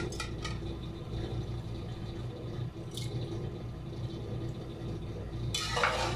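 A few light drips and clicks as rice is tipped from a glass bowl into a pot of milk. About five and a half seconds in, a metal slotted spoon starts stirring and scraping through the milk and rice in a metal pot.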